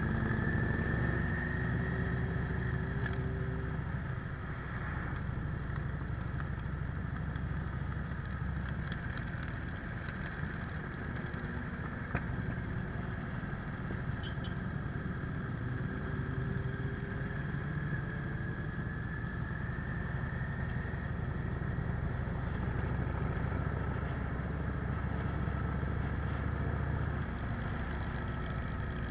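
Cruiser motorcycle engine running steadily at low parade speed, heard from the rider's seat, its note rising and falling gently with the throttle, with the rush of riding air over the microphone.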